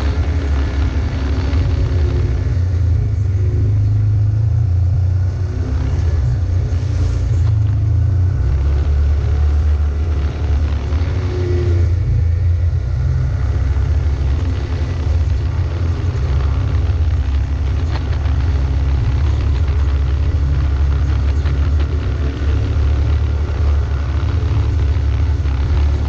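A vehicle's engine running steadily at low speed over a rough dirt track, with a deep, constant rumble underneath.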